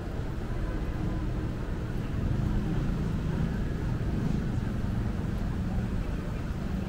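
Low, steady rumble of street traffic, with a vehicle engine running close by.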